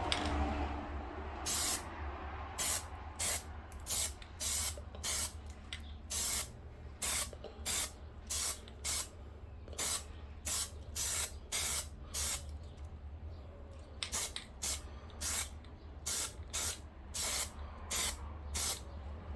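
Plasti Dip aerosol spray can sprayed in many short bursts, about two a second with a brief pause partway, as a coat of rubber coating goes onto a plastic handle. A steady low hum runs underneath.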